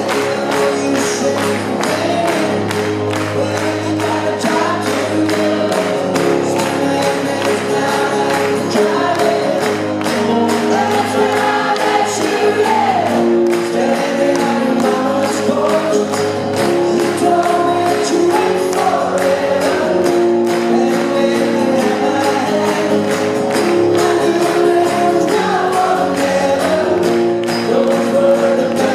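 A man singing a song live while strumming a steel-string acoustic guitar, in an even strumming rhythm under the vocal melody.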